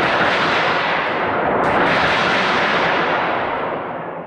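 Thunder sheet, a large metal sheet, shaken to make a rolling thunder rumble that swells again a little under two seconds in and then slowly fades.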